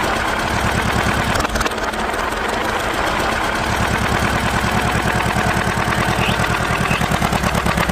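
Tractor engine running with a fast, steady chugging pulse, the pulses growing more distinct about halfway through.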